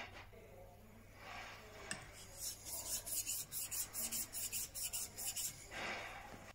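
Back of a steel chisel being lapped flat on a 1,000-grit waterstone: a gritty scraping that starts faintly, then becomes quick back-and-forth strokes, about four a second, with one longer stroke near the end.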